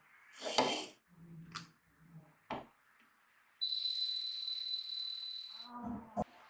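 A few knocks and rustles, then a steady high electronic beep held for about two seconds, then a short click.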